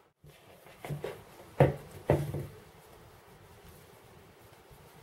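A few short, soft knocks from handling shortbread dough and its plastic mixing bowl over a wooden board. The two loudest come about a second and a half and two seconds in.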